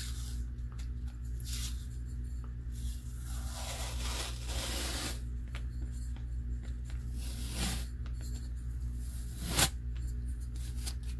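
Blue painter's masking tape being peeled off a painted metal focuser tube in several ripping pulls, the longest lasting about two seconds a few seconds in. A single sharp click near the end is the loudest sound.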